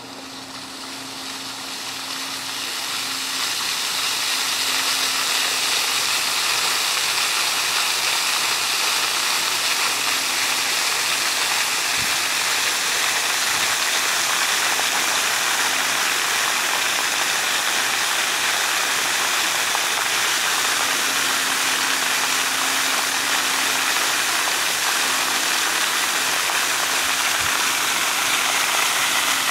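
Steady rushing hiss of fountain water jets spraying and splashing onto pavement, growing louder over the first few seconds and then holding level.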